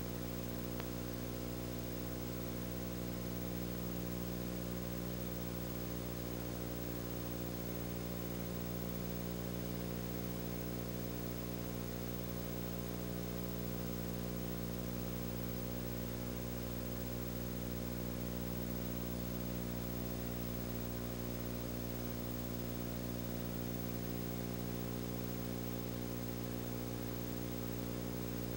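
Steady electrical hum with a stack of low overtones and a faint hiss, with no other sounds: the noise floor under silent home-movie footage.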